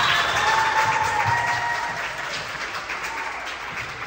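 Spectators cheering and clapping, with shouts at first, dying down over a few seconds.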